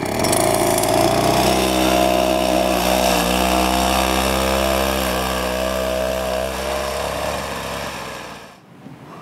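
Small engine of a motorized ski track drive revving up and then running steadily as it pushes a skier over snow. It fades as the unit moves away, then stops abruptly near the end.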